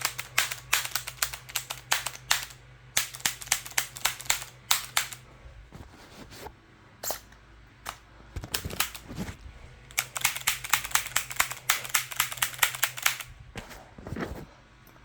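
Rapid runs of sharp mechanical clicks and clacks, several a second, in bursts with short pauses, from the HDR50 revolver and its 3D-printed barrel shroud being handled. A faint low hum runs underneath and fades near the end.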